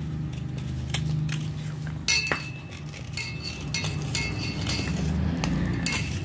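Knife blade scraping the soaked outer layer off a piece of white clay, in short scrapes with sharp clicks of the blade. A steady low hum runs underneath.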